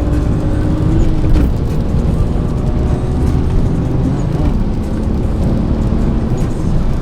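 A car driving, with steady engine and road noise and the engine pitch rising and falling slightly about a second in.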